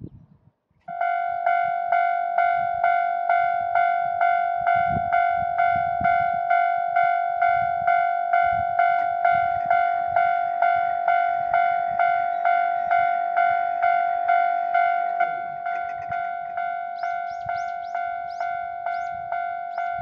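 Japanese level-crossing warning bell (the 'kan-kan' alarm) starts about a second in, a single high ding repeated about twice a second. It gets a little quieter about fifteen seconds in, and faint high chirps join it near the end.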